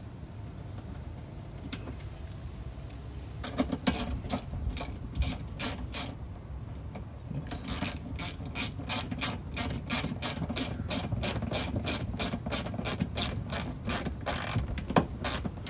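Ratchet wrench clicking as it drives in screws: a short run of clicks about three and a half seconds in, then from about seven and a half seconds a longer run of even clicks, about three a second.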